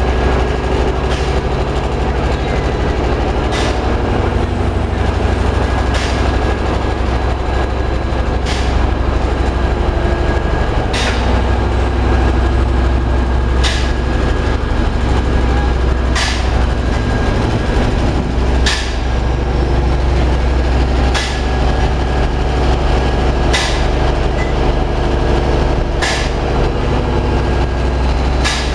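Machinery of a biomass gasification power plant running: a loud, steady low drone with a faint high whine, and a short sharp click about every two and a half seconds.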